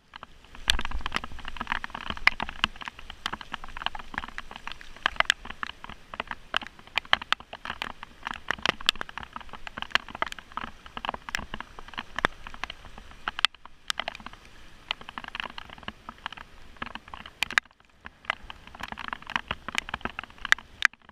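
Heavy rain pattering on a car, a dense hiss full of sharp drop impacts. It breaks off abruptly twice for a moment.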